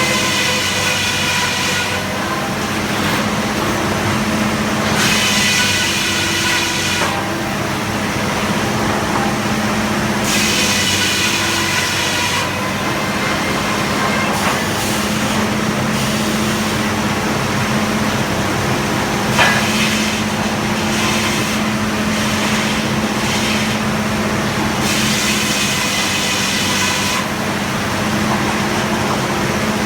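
Frick sawmill running: a steady engine drone under the circular head saw, which whines through wood in several cuts of about two seconds each.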